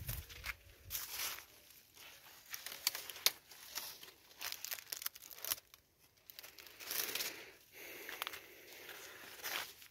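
Dry, dead corn leaves and stalks rustling and crackling in irregular bursts as someone pushes through them.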